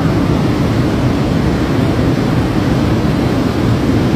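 Flash-flood mudflow rushing down a wide river valley: a loud, steady rushing rumble with no breaks.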